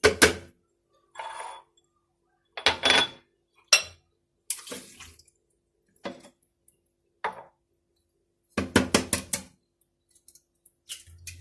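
Glass and metal kitchenware clinking and knocking as ingredients are handled and poured into a mixing bowl, in separate short strokes with a quick run of clinks about nine seconds in. A faint steady hum lies underneath.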